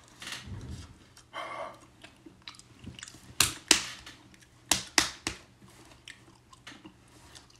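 A person chewing a chili-coated peanut from the Death Nut Challenge, with several sharp crunches in two quick clusters around the middle.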